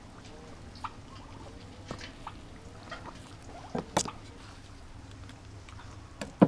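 Hands tying jute twine around a whole salmon on a metal spit: scattered rustling and scraping of the twine and fish, with a few sharp short knocks, the loudest near the end.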